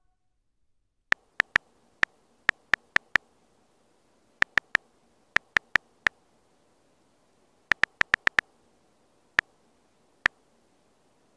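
Key-press clicks from a phone's on-screen keyboard as a message is typed. There are about two dozen identical short ticks, coming in quick runs of two to six with brief pauses between.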